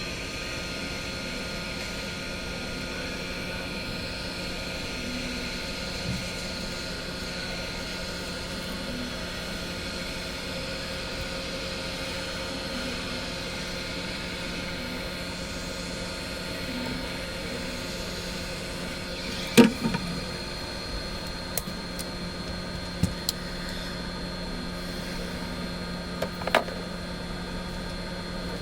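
Steady hum of a small electric motor, such as a blower, holding one pitch throughout, with a few sharp clicks and taps; the loudest comes about two-thirds of the way through.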